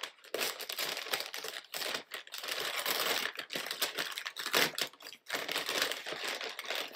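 Brown paper fast-food bag rustling and crinkling as its taped-shut top is torn open by hand, a dense run of small crackles with a brief pause about five seconds in.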